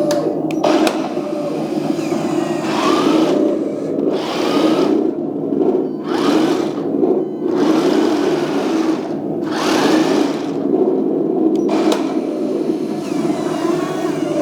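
RC tank sound unit playing an engine-running sound through its small speaker, with the main-gun firing effect repeated about every two seconds. The barrel's recoil mechanism whirs with each shot.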